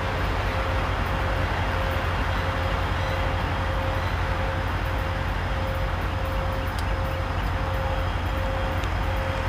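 EMD diesel locomotive at the head of a loaded coal train, running as the train rolls slowly: a steady low rumble with a thin steady whine over it.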